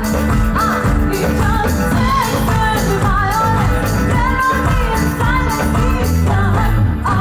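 Amplified live rock band playing a song with a singer, bass and drums.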